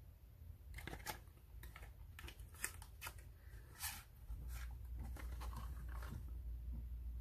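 Paperboard cosmetic carton being opened and handled, with a run of faint crackles, scrapes and clicks as the tube is taken out. A low steady hum underneath gets louder a little past halfway.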